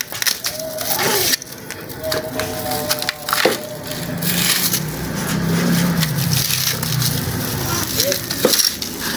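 Old, dried-out khus grass of a room cooler pad crackling and rustling as it is pulled and pressed by hand, with many short snaps of the stiff stems.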